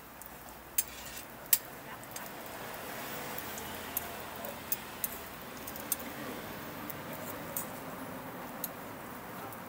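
Scattered sharp metallic clicks and taps of metal cooking tongs against a steel griddle, about eight in all, over a steady background hiss.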